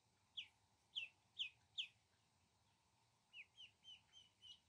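Ducklings peeping. Four loud peeps fall in pitch in the first two seconds, then a run of softer, quicker peeps comes near the end.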